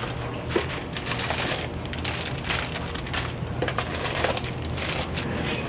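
Plastic bags of jelly beans crinkling and rustling in irregular bursts as they are handled and dropped into a wire bin, over a steady low hum.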